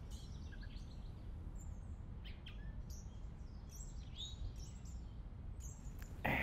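Faint birds chirping intermittently over a low steady room hum. A louder sound starts near the end.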